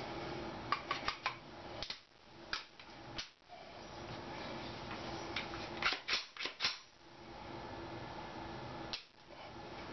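Sharp metallic clicks and clacks from the parts of a Thureon Defence GA .45 ACP carbine being handled and reassembled after its bolt handle is refitted: a few about a second in, a quick run of about five around the middle, and one more near the end.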